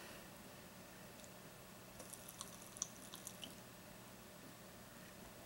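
Faint scattered crackles and pops, mostly a little past the middle: Pop Rocks popping candy crackling in a closed mouth with a mouthful of soda.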